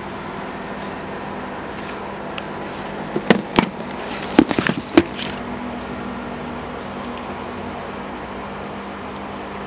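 Steady low hum throughout, with a short run of sharp clicks and knocks about three to five seconds in.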